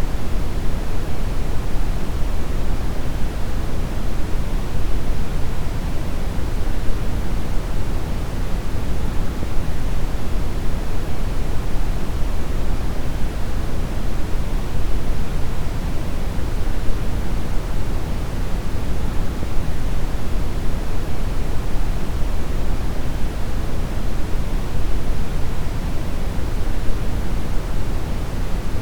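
Steady, loud deep brown noise: an even rushing hiss weighted heavily toward the low end, without any change.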